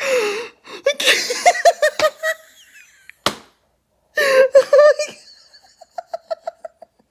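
A person laughing hard in repeated bursts. There is a single sharp smack a little past three seconds in, and the laughter ends in a run of short, quick giggles.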